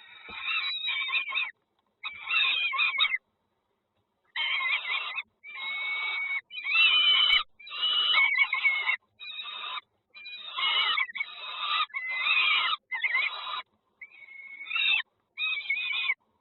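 Nestling birds begging in the nest, a raspy high chirping chorus in bursts of about a second each, broken by abrupt silent gaps.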